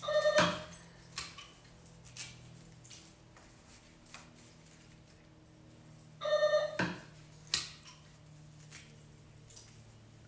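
Doorbell ringing twice, about six seconds apart, each ring a short single electronic tone, pressed again and again by someone waiting to be let in. A few light knocks sound between the rings.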